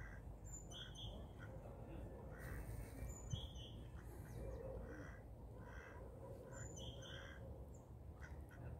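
Small birds chirping faintly in short high calls, repeated every couple of seconds, over a steady low background rumble.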